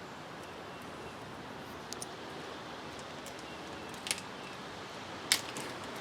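Steady low background hiss broken by a few short, sharp clicks. The clicks come at about two seconds in, about four seconds in and, loudest, near the end, as a small part and its packaging are handled.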